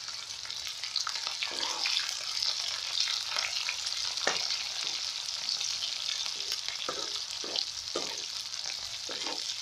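Chopped onions sizzling in hot oil with cumin seeds in a kadhai, a steady hiss, while a spatula stirs them with irregular scraping strokes against the pan.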